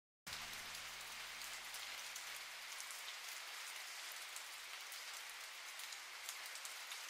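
Recorded rain: a steady hiss of fine pattering drops that cuts in abruptly from silence, with a faint low hum underneath that stops about two seconds in.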